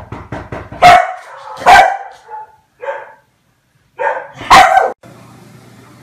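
Komondor barking: three loud barks, about a second in, near two seconds and about four and a half seconds in, with quieter short sounds between them. The barking cuts off suddenly about five seconds in.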